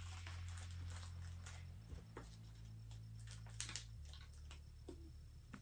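Faint, scattered light clicks and rustles of small plastic toy pieces and their packaging being handled by hand, over a low steady hum.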